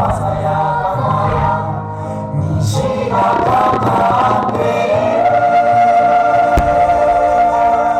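A Japanese pop ballad with sung vocals, ending on a long held note. A single sharp firework bang comes about six and a half seconds in.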